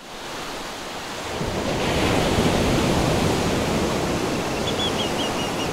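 Ocean surf washing up a sandy beach, a steady rushing that fades in from silence over the first two seconds.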